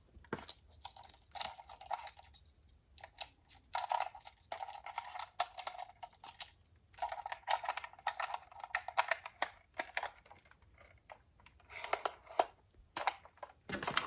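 Irregular clicks, rubs and crackles from a plastic portable radio being handled and its controls worked, with short patches of rasping crackle.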